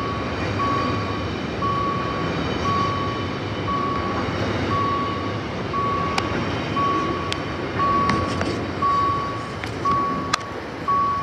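Electronic warning beeper giving a short steady tone about once a second, over a steady rumble of engine and traffic noise, with a few sharp clicks in the second half.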